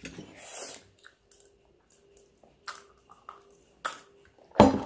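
People eating noodles: chewing and mouth noises, with a few light clicks of utensils on steel plates. A louder clatter comes near the end.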